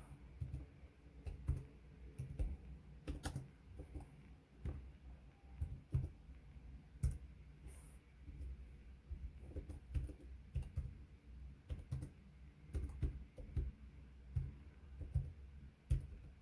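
Irregular light clicking and soft tapping, a few a second with short pauses between runs.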